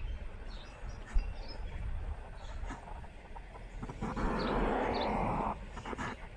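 Outdoor street ambience with faint bird chirps and scattered light clicks, and about four seconds in a rush of noise that lasts about a second and a half.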